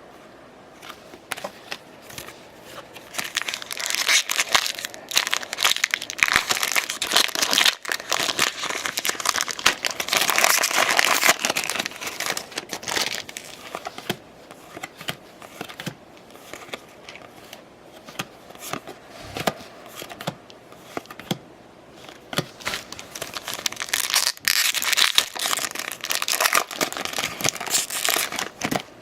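Plastic foil wrappers of baseball card packs being torn open and crumpled, a dense crackling and crinkling. It comes in two busy spells, a long one starting a few seconds in and a shorter one near the end, with quieter handling between.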